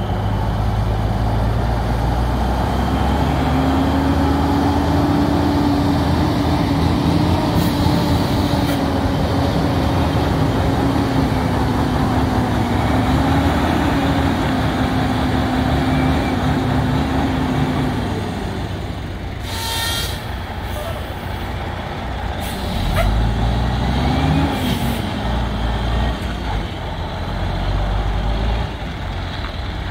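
Diesel engine of a sugarcane tractor-trailer truck pulling away under load, its engine note holding steady for a long stretch, dropping off past the middle, then climbing again. Several short hisses of air from the air brakes.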